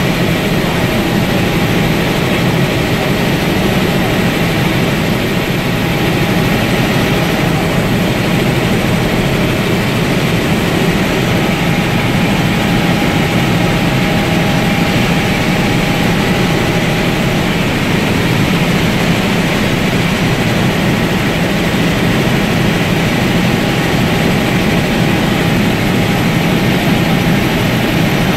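Helicopter engine and rotor running steadily in flight, heard inside the cabin as a loud, even drone.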